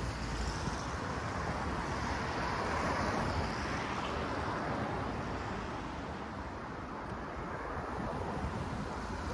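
Street traffic noise: a steady rush that swells about three seconds in and eases off a little later.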